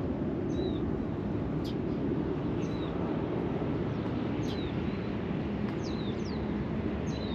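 A bird calling in short, high, down-curving chirps about once a second, over a steady low rumble of background noise.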